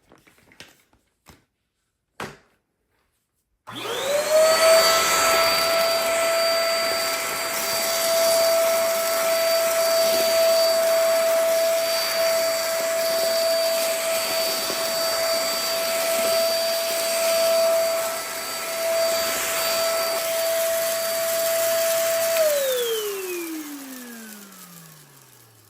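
A few light clicks, then a SOWTECH corded stick vacuum switched on: its motor spins up within a second to a steady high whine over a rushing air hiss, runs for about eighteen seconds, then is switched off and winds down in a falling whine.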